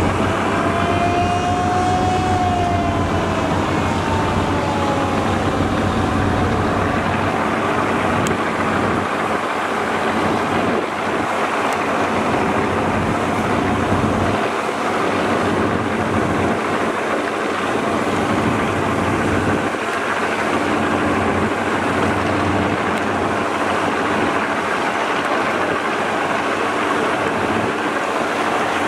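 Diesel engines of large multi-deck river passenger launches running under way, a steady drone mixed with the rush of churning water and wake. A tone bends up and then down in pitch in the first few seconds.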